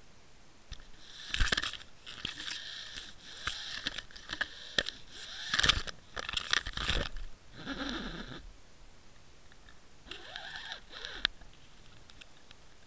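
Water Wolf underwater fishing camera knocking and scraping against kelp and rock underwater, heard through its own housing as bursts of crackling clatter. There are three spells, the longest in the first half, with quieter stretches between.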